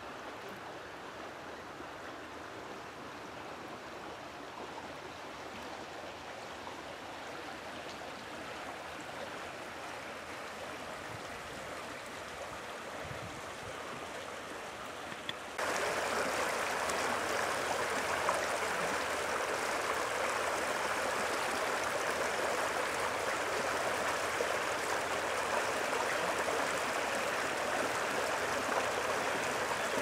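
Small woodland creek flowing over shallow riffles: a steady rush and gurgle of running water. About halfway through it turns suddenly louder and brighter, with the water close by where it breaks over the riffle.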